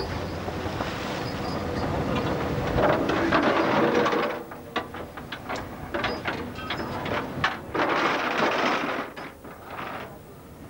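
Rushing noise of wind and the ship's wake at the open stern, easing after about four seconds. It gives way to a run of sharp clanks and knocks of sweep gear, chain and metal fittings, on the deck.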